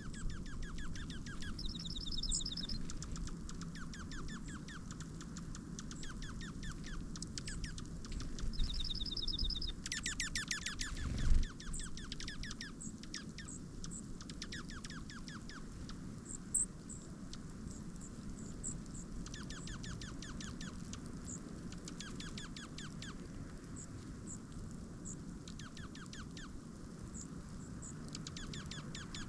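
Small songbirds calling and chipping at a feeder, with quick runs of short high notes and ticks, over a low steady background rumble. A single loud thump about eleven seconds in.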